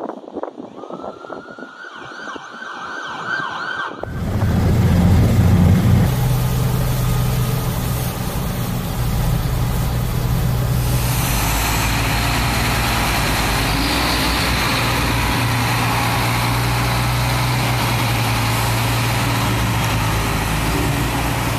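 A siren rises in pitch and holds for the first few seconds. It gives way to a vehicle engine running steadily through floodwater, with a rushing spray of water that grows louder about halfway through.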